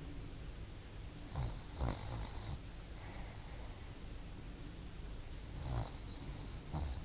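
A sleeping dog snoring: two snoring breaths about four seconds apart, each a few low snorts with a breathy hiss.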